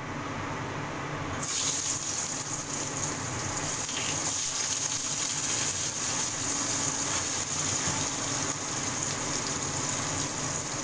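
Potato wedges frying in hot oil in a steel wok: a steady sizzling hiss that swells sharply about one and a half seconds in, as the potatoes go into the oil, and then holds.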